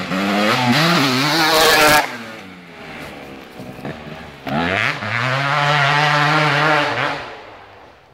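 KTM dirt bike engine revving hard as the bike approaches, with the throttle cut sharply about two seconds in. It revs up again a couple of seconds later, holds a high steady pitch, then fades away.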